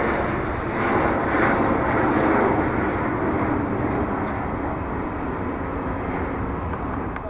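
Jet airliner engines running loud and steady, easing off somewhat in the second half.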